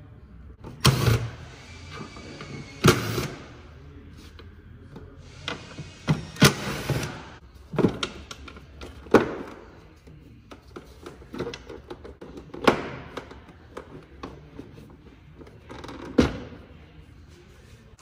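Plastic air box of a BMW M3's V8 being unclipped and opened by hand: irregular sharp knocks and clicks, about seven loud ones, with two short stretches of scraping.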